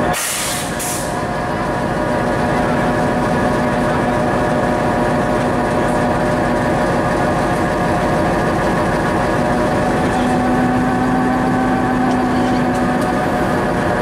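Diesel locomotive's engine idling steadily at close range, a steady hum with several held tones. A short hiss comes in the first second.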